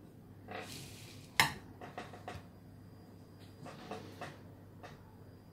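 Crockery and cutlery clinking and knocking a few times, with the sharpest knock about one and a half seconds in and small clusters of clinks after it.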